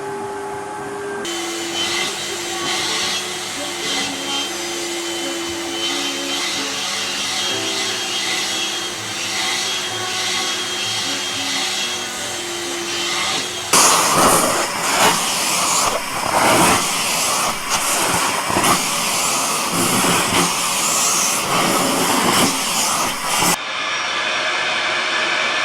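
Vacuum cleaners running, heard in several short clips one after another. In the middle clip the suction noise swells and drops every second or so.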